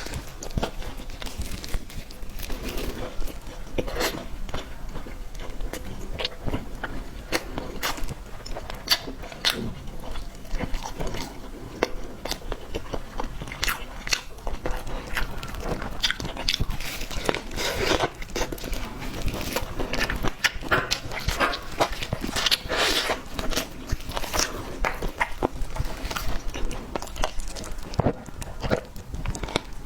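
Close-miked eating of cake: continual irregular biting and chewing with wet, crunchy clicks.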